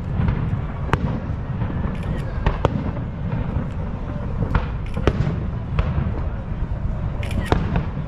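Fireworks bursting: irregular sharp bangs and crackles, several a second at times, over a steady low rumble.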